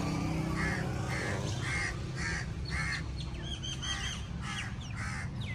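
A bird calling over and over, about two calls a second, with short higher chirps from another bird about midway, over a steady low hum.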